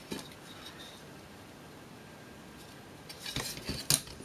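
Quiet room tone, then near the end a short run of clicks and knocks, one of them sharp: the heater's fan and circuit-board assembly being handled and set down on a table.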